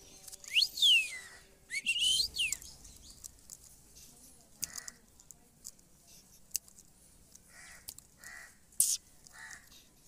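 Ringneck parakeet giving two loud swooping whistles near the start, then a few short, softer chirps with scattered sharp clicks.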